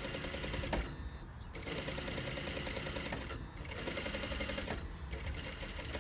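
Sewing machine stitching a curved seam through two layers of fabric, a fast steady needle rhythm that eases off briefly three times as the fabric is guided around the curve.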